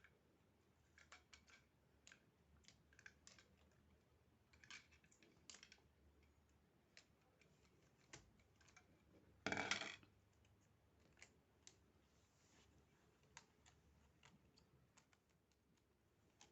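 Quiet handling of small tools and cable: scattered light clicks and taps, with one louder noise lasting about half a second near the middle.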